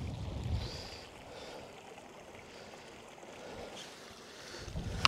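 Wind buffeting the microphone in gusts near the start and again near the end, over the steady trickle of a small moorland stream.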